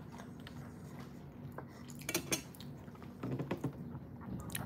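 Metal fork clinking against a ceramic dinner plate in a few light strikes, the sharpest two close together about two seconds in.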